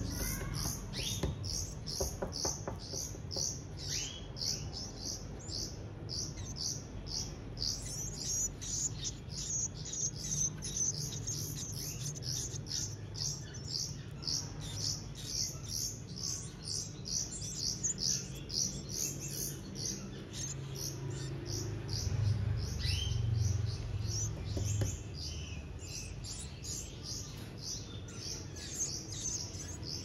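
Nestling songbirds giving a continuous stream of short, high begging chirps, about three a second, with an occasional louder falling call mixed in.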